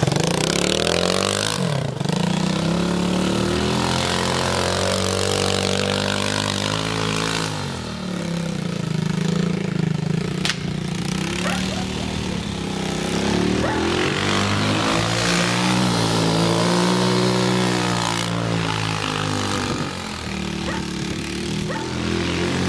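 Quad bike (ATV) engine running and revving, its pitch rising and falling several times as the throttle opens and closes.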